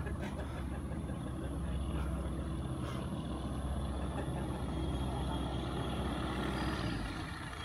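Weight-shift microlight trike's engine and propeller running steadily as it taxis, a low even rumble.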